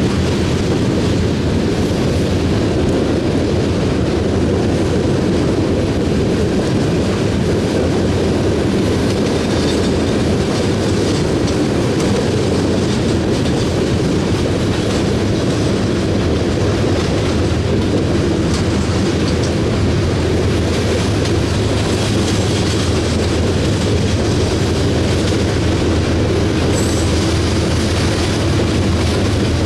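Steel coal hopper cars rolling past at speed, wheels clattering steadily over the rail joints with a constant heavy rumble. A low engine drone swells over the last few seconds as a diesel locomotive placed in the middle of the train draws near.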